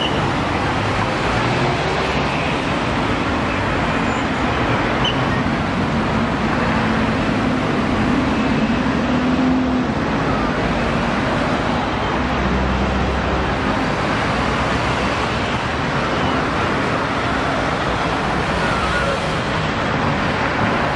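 Steady city street traffic noise, with the low hum of passing vehicle engines rising and falling.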